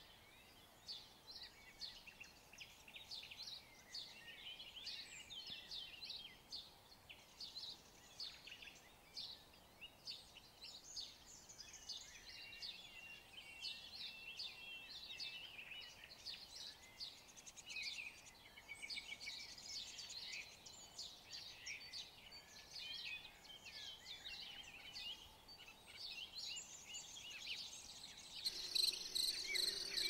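Many birds singing and calling together, a dense chorus of short high chirps and trills. Near the end a steady high insect buzz begins.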